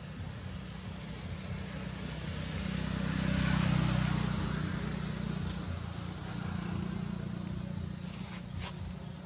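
Engine of a passing motor vehicle: a low drone that swells to its loudest three to four seconds in, then fades. A short click comes near the end.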